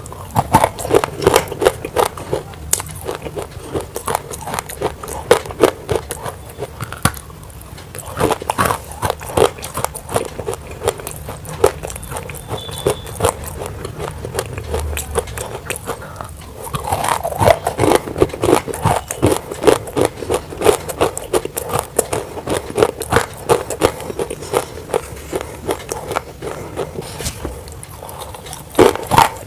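Close-miked crunching and crackling of dry, hard clay being bitten and chewed, in irregular bouts with short lulls between.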